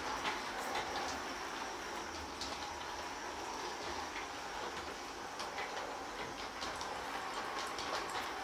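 LGB G-scale model train running on brass track laid on a hard floor: a steady rolling hiss from the wheels and motor, with scattered clicks as the wheels cross the rail joints.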